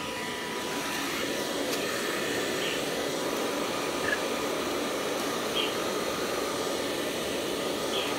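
Handheld electric hair dryer blowing steadily, a little louder from about a second in.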